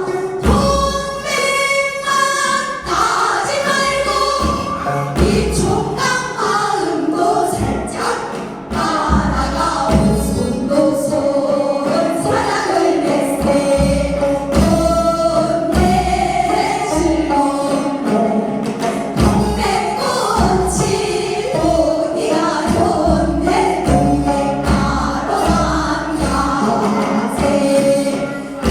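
Korean folk song (minyo) performed live: singing voices with sliding, held notes over a regular drum beat.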